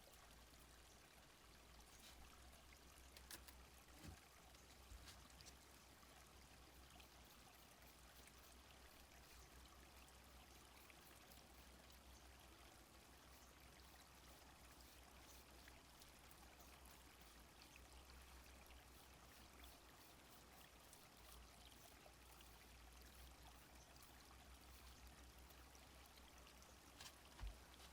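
Faint ambience recording of a small stream flowing: an even rush of water, with a few soft clicks here and there.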